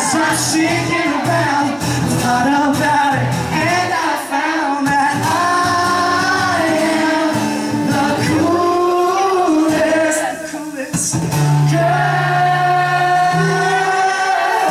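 A man singing live into a microphone while playing an acoustic guitar.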